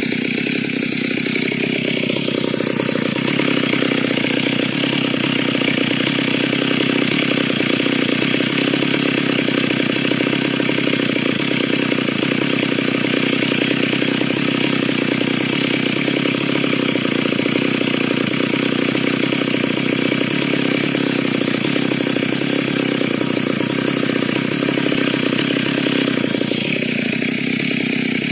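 Stihl MS 382 two-stroke chainsaw running steadily under load as it rips lengthwise through dry timber. Its note shifts briefly near the start and again near the end.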